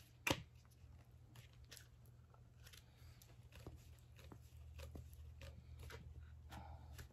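Faint clicks, ticks and light scrapes of hands working plastic connectors and metal tubes of a small greenhouse shelf frame, with one sharper click just after the start.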